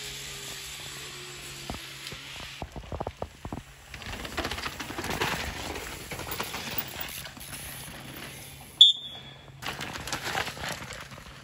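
Downhill mountain bikes rolling past on a dirt trail, tyres crunching and rattling over dirt and roots. About nine seconds in there is a brief high-pitched squeal.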